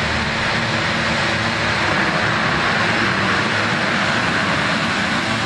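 A full field of motocross bikes revving together and launching off the start, many engines running hard at once as the pack accelerates away.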